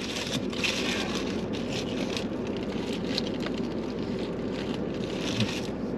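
Foil and paper food wrappers crinkling and rustling in short crackles over a steady hum inside a car cabin.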